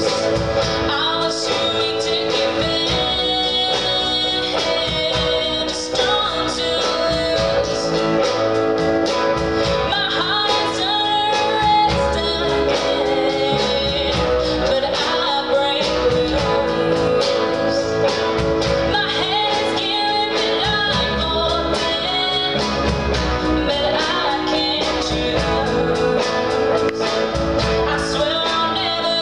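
Live rock band playing: electric guitar, drums and keyboards, with a singer over them.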